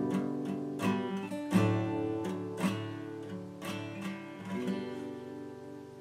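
Background music played on acoustic guitar, notes struck roughly once a second and left to ring, fading out toward the end.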